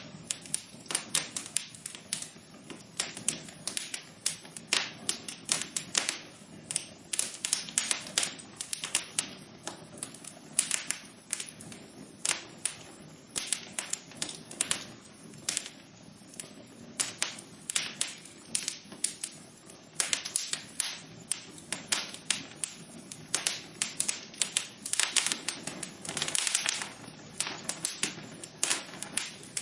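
Wood fire crackling in a fireplace: a steady stream of irregular sharp pops and snaps, some louder than others, over a faint continuous low rush.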